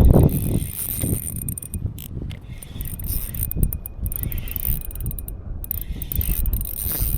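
A TD Black 2000 spinning reel being cranked to wind in a hooked bream, with wind buffeting the microphone.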